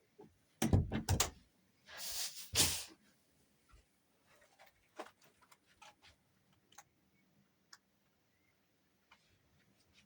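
Several heavy thumps about a second in, then a short scraping noise about two seconds in, followed by scattered faint clicks and knocks, in a small enclosed space.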